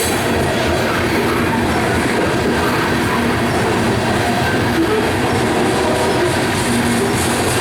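BNSF unit coal train rolling steadily past on the main line, a continuous rumble of steel wheels on rail with clatter from the passing cars.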